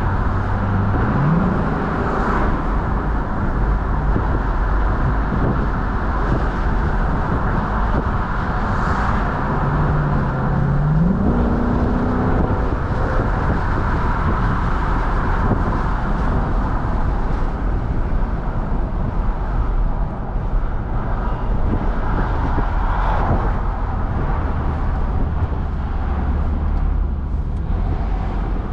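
Lexus LC500's naturally aspirated 5.0-litre V8 pulling as the car accelerates, its note rising about a second in and again around eleven seconds in, over steady wind and road noise heard with the convertible roof down.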